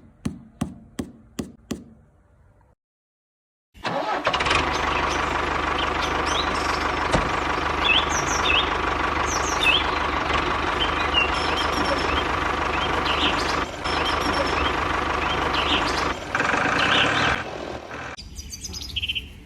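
A quick run of about six clicks, a second's pause, then a small motor running steadily, with birds chirping over it. The motor sound changes about three-quarters of the way through and drops lower near the end.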